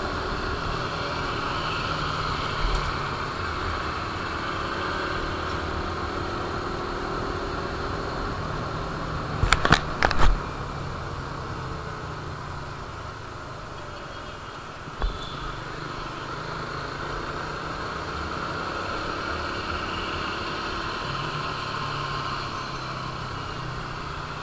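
Suzuki Raider 150 Fi's single-cylinder engine running steadily while riding, with wind noise on the microphone. There is a quick cluster of sharp knocks about ten seconds in and a single knock about five seconds later.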